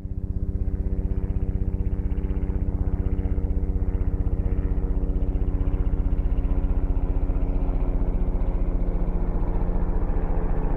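Aircraft noise: a steady low drone made of several hum tones, with a rapid, even pulsing beat.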